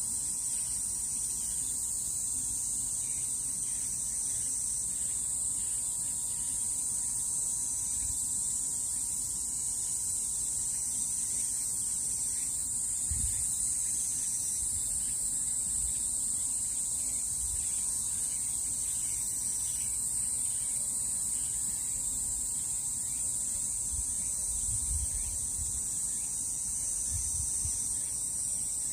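Steady chorus of grass insects in summer heat, a continuous high-pitched buzz that holds without a break. A few brief low rumbles come through now and then, about halfway and again near the end.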